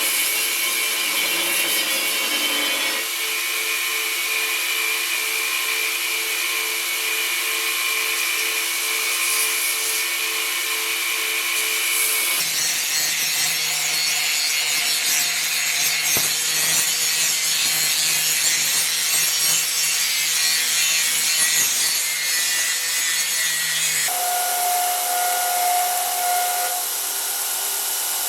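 A tool grinding or rasping the steel longsword blade: a steady abrasive noise with a few held tones. It changes character abruptly a few times.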